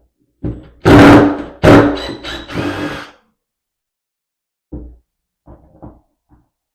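An old door deadbolt's metal parts being pulled apart and handled: two loud clattering knocks with some ringing in the first three seconds, then a few light taps.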